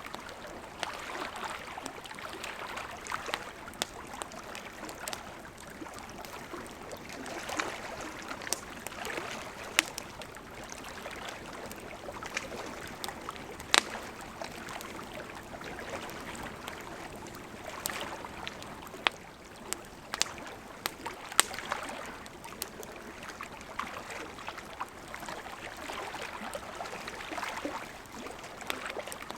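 Small lake waves lapping at the shore, swelling and easing every few seconds, with the occasional sharp pop of a crackling wood campfire.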